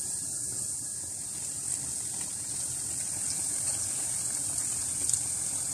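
Gram-flour and lentil batter fritters deep-frying in hot oil in a karahi, the oil sizzling steadily around them.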